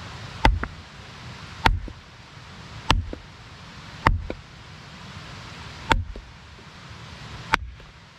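Hatchet chopping into wood: six sharp strikes a second or two apart, each followed by a lighter knock, over a steady hiss. The wood is being split to reach its dry inside.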